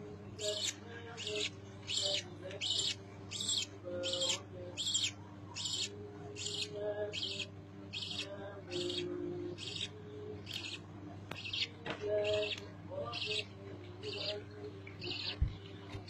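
Budgerigar chicks' high begging cheeps, repeated in a steady rhythm of about two a second while they are being fed, over a faint steady hum.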